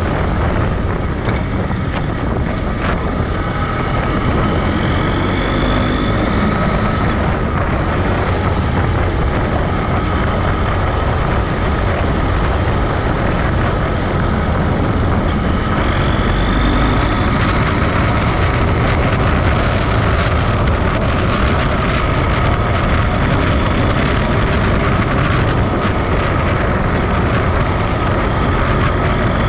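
Motorcycle riding at speed: the engine running steadily under heavy wind rush on the microphone.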